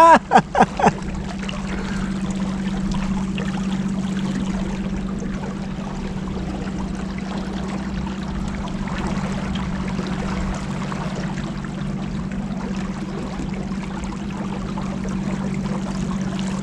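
Motorboat engine running steadily at cruising speed, a constant low hum, with water rushing along the hull.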